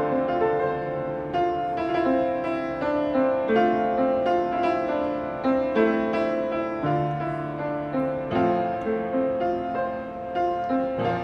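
Acoustic upright street piano played solo: a flowing piece of melody and chords, with new notes struck every fraction of a second over held bass notes.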